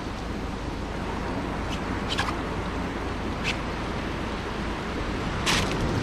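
Steady outdoor wash of wind and surf on a tropical beach. It is broken by a few short sharp sounds about two, three and a half and five and a half seconds in, the last the loudest.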